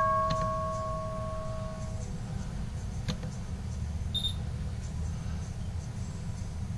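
A market-opening bell's ringing dying away over the first two seconds, leaving a low steady hum. A single sharp click comes about three seconds in and a short high beep a second later.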